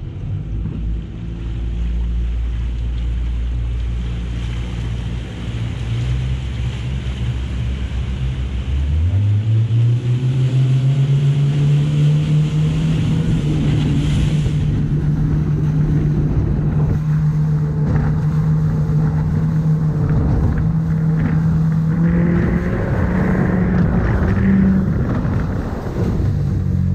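A boat's engine running at low revs, then throttled up about nine seconds in, its pitch rising and then holding steady as the boat runs at speed. Wind and water rush sound over it.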